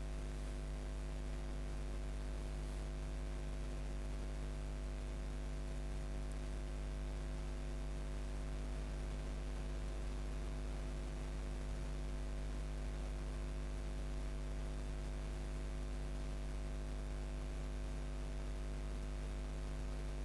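Steady low electrical hum with several constant tones over a faint even hiss, unchanging throughout.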